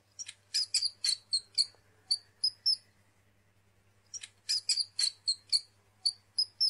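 Rat squeaking: a run of about ten short, high squeaks over two and a half seconds, then after a pause of about a second and a half the same run again.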